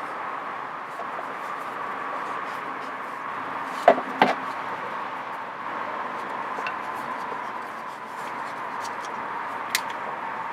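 Oil filter wrench clicking and knocking against a stuck oil filter as it is worked to break it loose, with two sharp knocks about four seconds in and another click near the end, over a steady hum.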